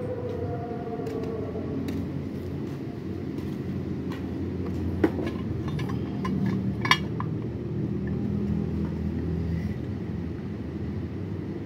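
Metal parts of a Toyota Camry balancer shaft assembly clinking and tapping as the new balancer gears are handled and fitted into their housing. Two sharper clinks come about five and seven seconds in, over a steady low hum.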